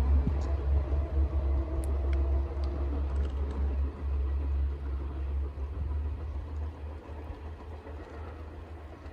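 Two-car KiHa 110-series diesel railcar train moving away, its low engine and wheel rumble fading steadily, with a few faint clicks in the first few seconds.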